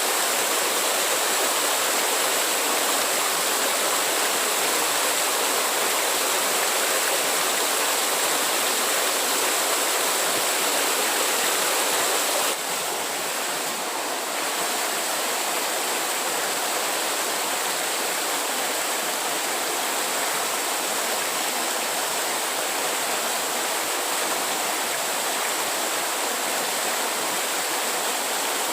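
Steady rushing water, a constant even noise, dropping slightly in level about twelve seconds in.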